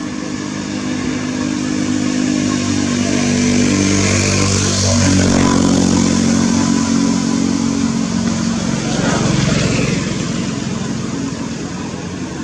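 A motor vehicle's engine passing by: its steady note grows louder, drops in pitch about five seconds in, then fades.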